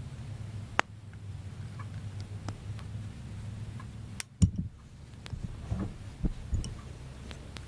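Plastic K'nex pieces clicking and knocking as they are handled and fitted together: scattered sharp clicks, the loudest a cluster about four and a half seconds in, over a steady low hum.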